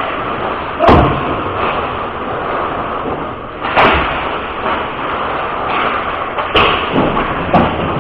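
Ice hockey play: four sharp bangs of puck and sticks against the rink boards, about a second in, near four seconds, and twice close together near the end, over a steady noisy hiss of the rink.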